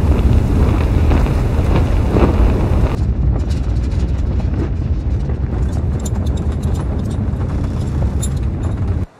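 Sound-effect rumble of a spacecraft plunging through the atmosphere: a loud, deep rumble that starts suddenly. From about three seconds in it carries crackling ticks, and it cuts off abruptly near the end.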